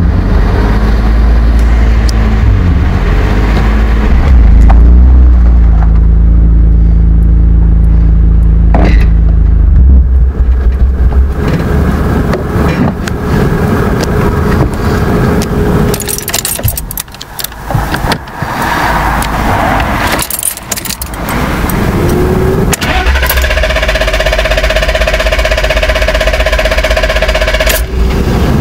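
BMW E34 520i's straight-six engine running at a high, surging idle, then stalling after about ten seconds and being cranked by the starter without catching, with keys rattling in the ignition. The high, hunting idle comes from an intake air temperature sensor reading −36 °C.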